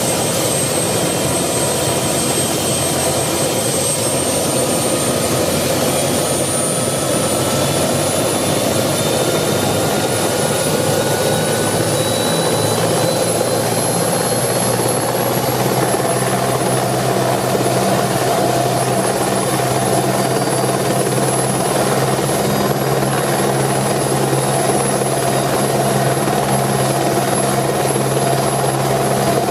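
Eurocopter AS355F-2 TwinStar twin-turbine helicopter running up. A high turbine whine rises in pitch over the first fifteen seconds or so and then holds steady, while the low rotor hum grows stronger about halfway through.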